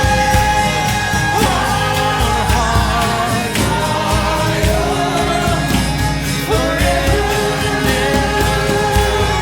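Live worship music: a band plays a steady beat while singers hold long sung notes.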